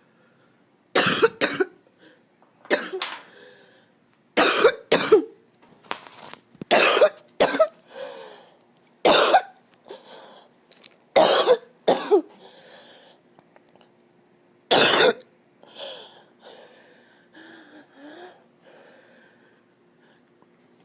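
A person coughing harshly with a chest cold, in loud short coughs, singly or in pairs, every second or two. After about 15 seconds they give way to fainter, scattered throat sounds.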